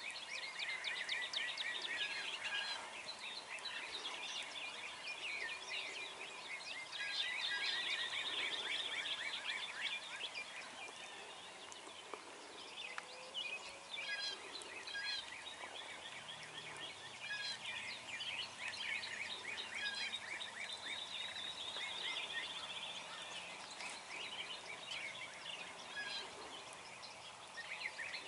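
Wild turkey gobbler gobbling, with other birds calling and trilling throughout.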